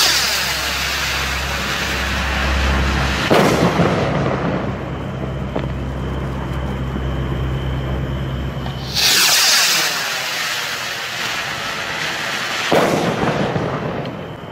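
Atlas 1700 firework skyrockets launching and bursting, twice: each goes up with a hissing whoosh and bursts with a sharp bang about three and a half seconds later, the bang echoing away. The first launch is at the start with its bang a few seconds in; the second launch comes about nine seconds in, its bang near the end.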